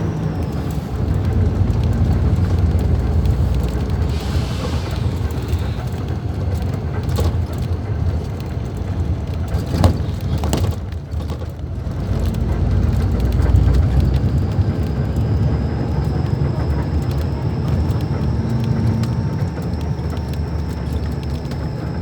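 Diesel engine of a Mascarello Roma M4 bus on an Iveco chassis running with a steady low rumble and a faint high whine over it. A brief hiss comes about four seconds in, and two sharp clicks about ten seconds in.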